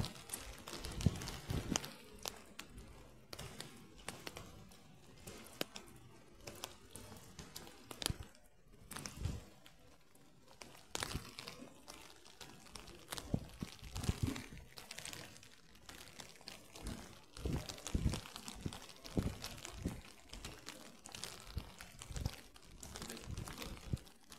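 Handling noise from a phone being carried by someone walking: irregular rustling, knocks and low thumps from the mic, along with footsteps.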